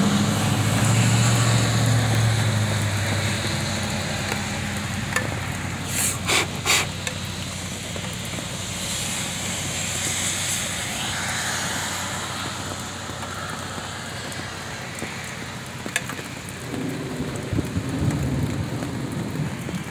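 Steady hiss of heavy rain falling on a wet parking lot. A vehicle passes on the road in the first few seconds, its engine hum fading. A few sharp taps come about six seconds in and once more later.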